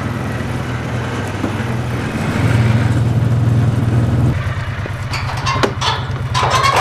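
A vehicle's engine running steadily. About four seconds in its sound changes, with the individual firing pulses coming through more plainly, and a few short knocks or rattles follow near the end.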